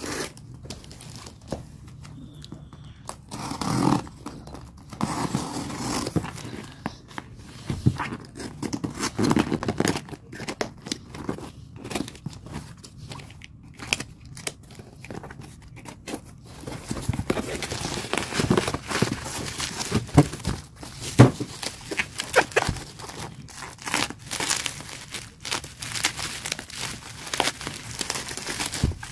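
Cardboard shipping box being cut and torn open by hand: scratchy tearing and scraping, with irregular clicks. It gets busier about halfway through, and near the end plastic bubble wrap crinkles as it is cut open.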